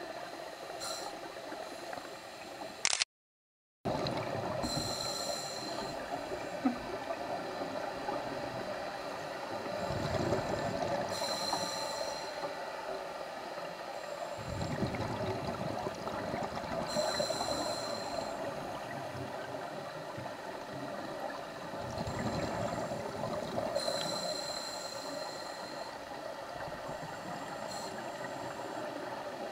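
Scuba diver breathing through a regulator underwater: a hissing inhale about every six seconds alternating with low bubbling exhalations, over a steady underwater hiss. The sound cuts out for under a second about three seconds in.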